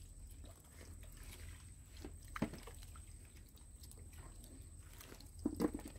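Wet squelching in soft mud as small fish are picked out by hand, with two short wet slaps, about two and a half seconds in and near the end, over a faint low hum.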